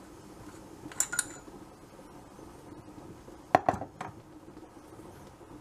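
Metal airgun parts, the air cylinder and its brass valve end, clinking and knocking as they are handled: a light clink about a second in, then a cluster of sharper knocks at about three and a half seconds.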